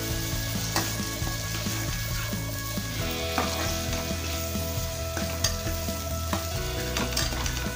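Small brinjal (eggplant) pieces frying in oil with ground masala paste in a kadai, sizzling steadily, while a spatula stirs and scrapes through them with scattered light clicks.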